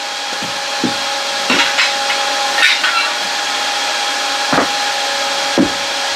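A steady workshop hum and hiss, with a handful of scattered knocks and short scraping clatters as tubular steel suspension A-arms are picked up and handled.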